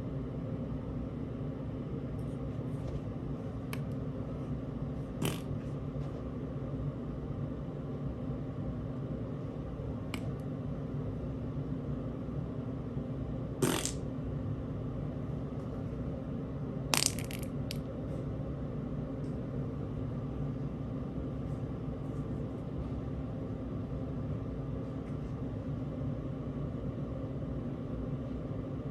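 Steady low hum with a few scattered sharp clicks or taps; the loudest comes about halfway through, and a quick pair or three follows a few seconds later.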